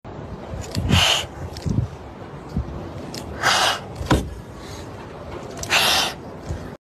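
Kitten hissing three times in short sharp bursts, about two and a half seconds apart, a scared defensive hiss. A few short low thumps fall between the hisses.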